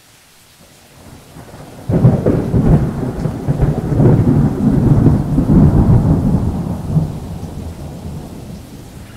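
Steady rain hiss, then a sudden thunderclap about two seconds in that rumbles on for several seconds and slowly dies away.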